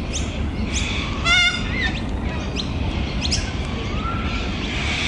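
Birds calling: a string of short, quick rising chirps, with one loud wavering call a little over a second in, over a steady low rumble.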